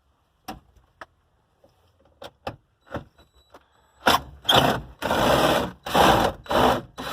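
A few sharp clicks and knocks as parts are worked loose from an old truck's dashboard. About four seconds in, loud scraping and rustling starts and comes in several bursts.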